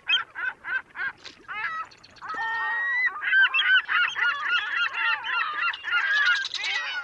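Geese honking: separate calls at first, about two or three a second, then many overlapping calls from a flock.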